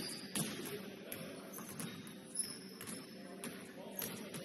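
Basketball game sounds: a basketball bouncing in irregular knocks and short high squeaks of sneakers on the court, over a murmur of voices.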